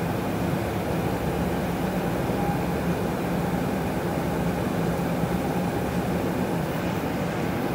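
City bus running, heard from inside the cabin: a steady engine drone with a low hum that holds even throughout.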